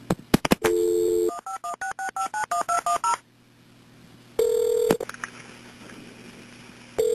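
Telephone line placing an outgoing call. A few clicks come as the line is picked up, then a brief dial tone, then a rapid string of about ten touch-tone (DTMF) digit beeps. The ringing tone of the called line follows, once about four and a half seconds in and again near the end.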